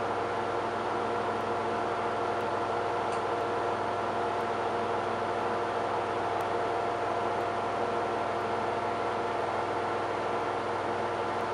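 Candy Bianca washing machine spinning its load at a constant speed: a steady rushing hum with a fixed whine over it.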